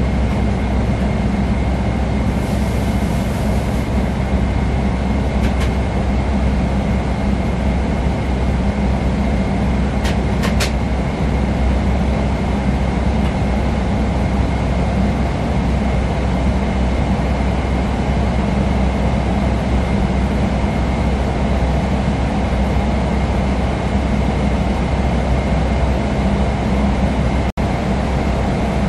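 Steady, loud cabin noise inside a Boeing 777-300ER: a low rumble of its GE90 jet engines and the airflow, with a thin steady whine above it.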